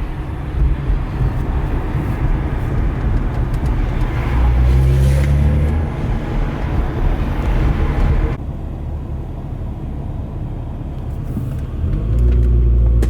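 Car engine running under way with road noise, a dense low drone; about eight seconds in the sound changes abruptly to a duller, slightly quieter drone, then it swells again near the end.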